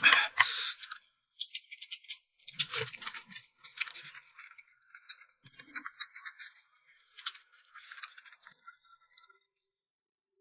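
Close-miked eating sounds: wet sucking, slurping and chewing of juicy blood orange slices in short, irregular crackly bursts, the loudest right at the start.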